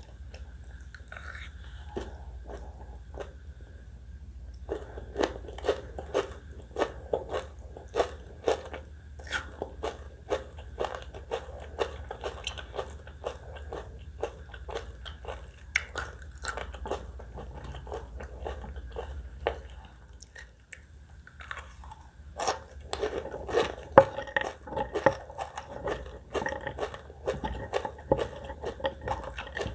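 Close-up eating sounds: loud crunching and chewing of spicy catfish salad with shredded sour green mango, in dense runs of crisp crackles, with a short lull near the middle.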